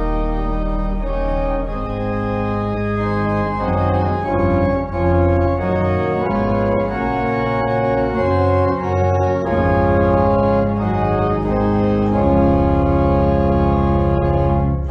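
Organ music: sustained chords over a held low bass line, the chords changing every second or so.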